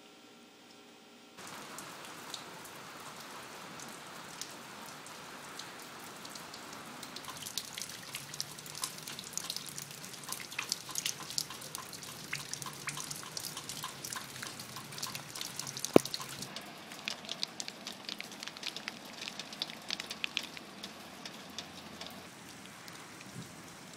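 Rain falling, with many distinct drops striking wet surfaces close by. It starts about a second and a half in, and a single sharp click about two-thirds of the way through is the loudest sound.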